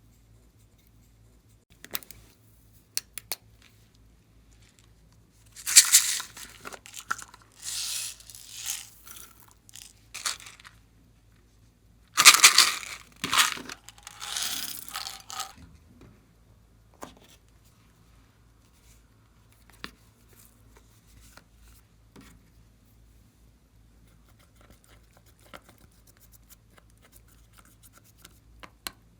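Glossy slime being worked by hand: a few light clicks, then three spells of rough, noisy handling sound about six, eight and twelve seconds in, the last lasting about three seconds, with faint clicks afterwards.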